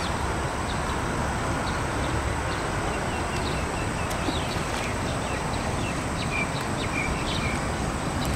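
Small birds chirping in short, scattered notes, some sweeping down in pitch, over a steady hum of road traffic.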